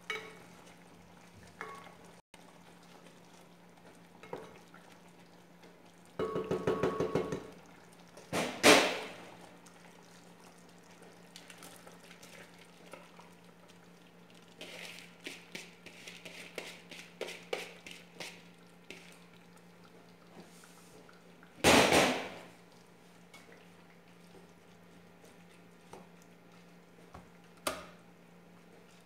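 Kitchen cooking sounds: rice and water tipped from a plastic bowl into a pot of chicken broth, a patter of small clicks for a few seconds around the middle. A rattling clatter and two loud clunks of the pot, lid and utensils on the glass-top stove come before and after. A steady low hum runs beneath.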